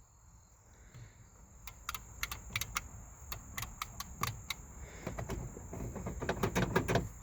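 A run of light, irregular clicks and taps, a dozen or more starting about two seconds in, with rustling handling noise that grows towards the end, as of small plastic parts in a car's cab being handled.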